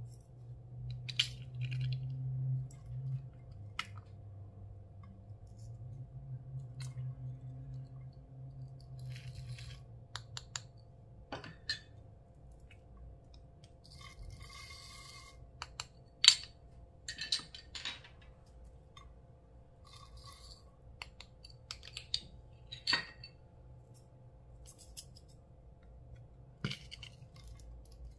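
Scattered clicks and clinks of small hard objects, with a few short crunchy scraping sounds, as makeup and small plastic pieces are handled for mixing into slime.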